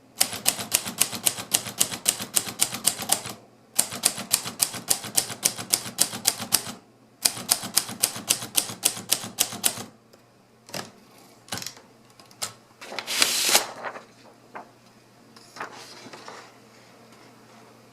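Hermes 3000 manual typewriter being typed on fast, about five or six keystrokes a second, in three runs with short pauses between. After that come a few scattered clicks and a brief louder rasping noise about two-thirds of the way in, then it goes quiet.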